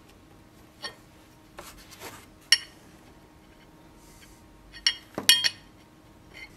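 Steel parts clinking as a drilled stainless steel knife blank and a steel block are handled and set against each other: a handful of short ringing metal clinks, the loudest about two and a half seconds in and a quick cluster of them around five seconds in.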